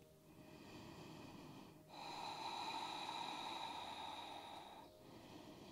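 A woman breathing slowly and deeply, each breath an audible rush of air; the longest and loudest breath starts about two seconds in and lasts nearly three seconds.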